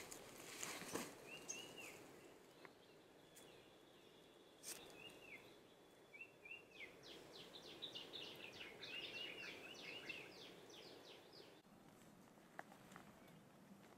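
Faint birdsong in woodland: a short arched whistled note repeated a few times, then from about seven seconds in a fast run of descending chirps lasting a few seconds.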